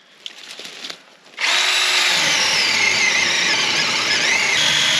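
Kebtek cordless electric chainsaw starting suddenly about a second and a half in and running steadily as it cuts into a tree, its motor whine wavering in pitch.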